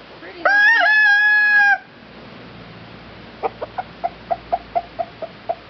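A rooster crows once, a short, loud, held call lasting just over a second. About three seconds in, a chicken starts a quick run of short clucks, about five a second.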